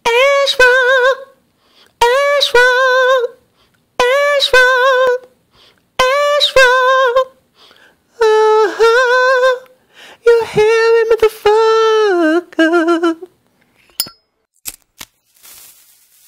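A single unaccompanied voice humming or singing short wordless phrases. Four alike phrases come about two seconds apart, then longer phrases fall in pitch, followed by a few clicks near the end.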